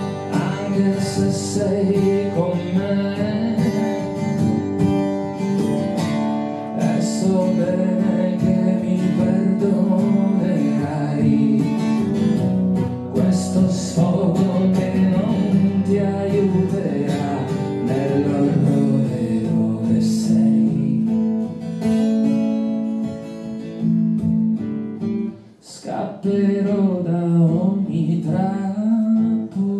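A man singing in Italian to his own strummed acoustic guitar, played live. The music dips briefly near the end, then picks up again.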